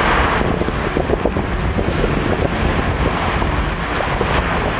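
Strong wind buffeting the microphone in a steady low rumble, with sea surf breaking behind it.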